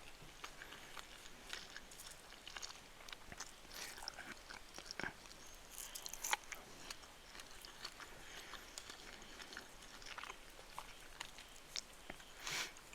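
A person chewing and eating chicken fried rice, with many small, sharp clicks and crunches scattered irregularly. A louder, slightly longer noise comes near the end.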